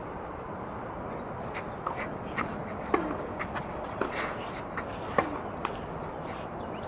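A short tennis rally: sharp racquet-on-ball hits roughly a second apart, with ball bounces and players' footsteps in between, over steady background noise. It starts about a second and a half in and ends near six seconds.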